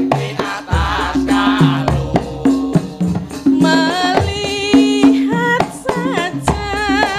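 Javanese gamelan playing, with kendang drum strokes under steady metallophone notes. A sinden, a woman singer, comes in about halfway through and sings with a strong vibrato.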